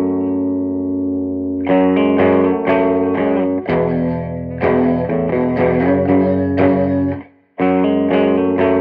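Electric guitar played through a Peavey Bandit 112 combo amp fitted with an Eminence Texas Heat speaker, with light distortion: several struck, ringing chords, then a run of lower single notes and chords. The playing is cut off suddenly about seven seconds in, and a chord rings out again just after.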